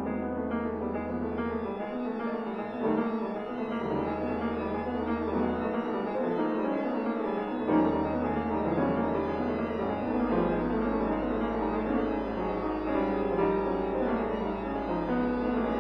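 Slow classical keyboard music: full chords moving over low bass notes, each held steady for about two seconds, with one long held bass note from about ten seconds in.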